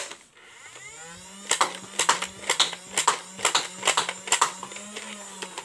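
Nerf Elite Stryfe flywheel blaster spinning up with a rising whine, then humming steadily while darts are fired semi-auto in a quick run of sharp shots, about two a second, emptying a six-round magazine.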